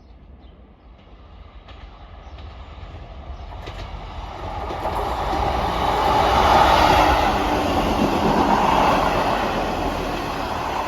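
Two coupled Class 158 diesel multiple units passing by. The train's noise builds from faint to loud over several seconds and stays loud as it goes past.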